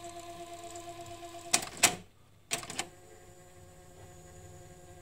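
Two pairs of sharp mechanical clicks from hi-fi component controls being pressed, about a second apart. The sound drops out briefly between the pairs, over a steady hum of held tones that returns quieter afterwards.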